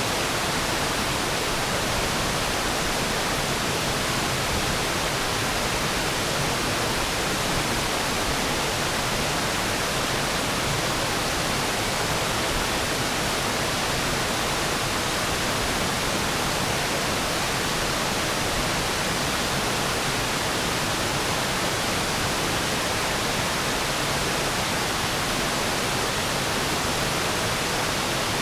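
River waterfall, water pouring over the falls in a steady, unbroken rush spread evenly from low to high pitches.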